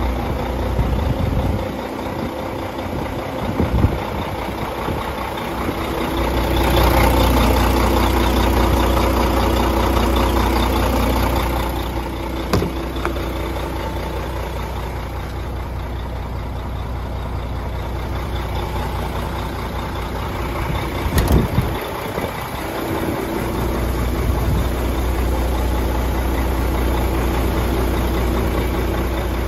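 MAN 26.510 truck's six-cylinder diesel idling steadily. It swells louder twice for several seconds, with a few sharp knocks.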